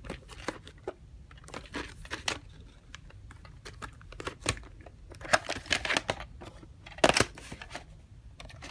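Plastic VHS clamshell case being handled: irregular clicks, taps and rustles, with a louder clack about seven seconds in as the case is opened and the tape lifted out.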